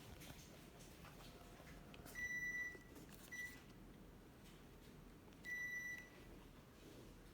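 Panasonic ceiling fan's electronic control unit beeping three times at one high pitch: a long beep, a short one, then another long one, over a faint steady background.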